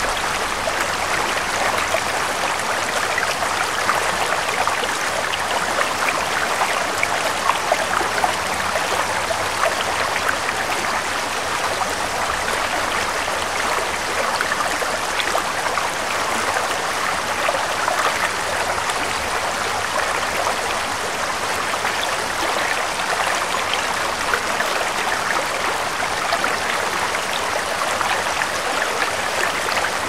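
Babbling mountain stream: steady rushing water with many small splashes and gurgles.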